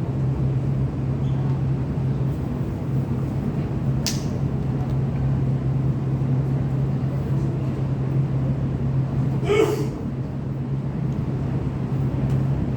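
Steady low hum and noise of an MTR Tuen Ma Line C-Train, heard from on board. A brief sharp click comes about four seconds in, and a short knock just before ten seconds.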